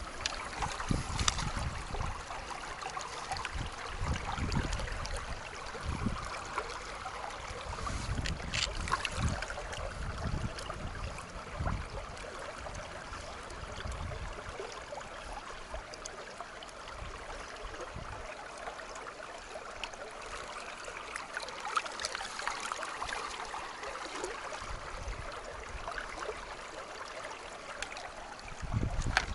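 Shallow river running over stones: a steady rush and trickle of water, with occasional low thumps and brief knocks.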